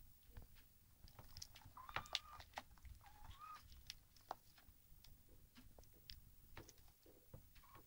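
Near silence with soft scattered clicks from a dog licking and mouthing a kitten's fur, and two faint short squeaks, about two seconds in and again about three and a half seconds in.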